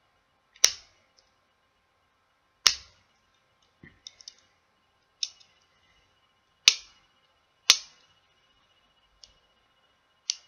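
Sharp plastic clicks and taps, about six of them at uneven intervals with a few fainter ticks between, as a smartphone's snap-fit plastic side trim pieces are worked loose from the frame.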